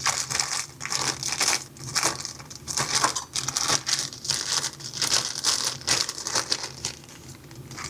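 Small plastic accessory bag crinkling in quick, irregular rustles as it is handled and worked open by hand, easing off near the end.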